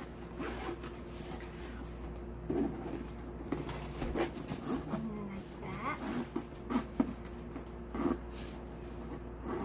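Leather-and-canvas backpack being handled, with scattered short clicks and rustles from its straps and metal hardware.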